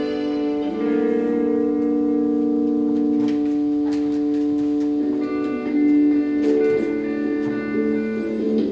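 Instrumental background music with long held notes, the chord changing about a second in and again about five seconds in.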